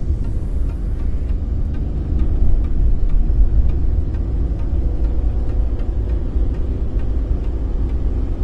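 Road and engine noise inside a moving car's cabin: a steady low rumble with a faint hum.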